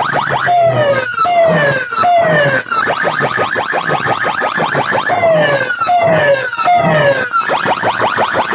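Electronic siren effect played at full volume through banks of horn loudspeakers in a sound-box competition. A fast warbling chirp repeats about ten times a second, falling wails come in every second or so, and a low pulse runs underneath.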